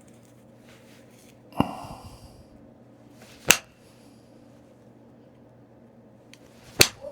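Three sharp clicks spread a few seconds apart, the first with a brief glassy ring, as flakes are knapped off a Tallahatta quartzite point to thin and even it up.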